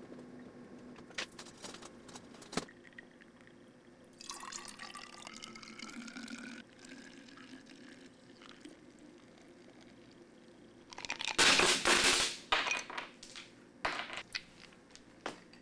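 Tea poured from a glass pitcher of ice into a narrow-necked glass Tab bottle, the filling note rising in pitch as the bottle fills. About eleven seconds in comes a louder burst of splashing and clatter, then a few sharp knocks.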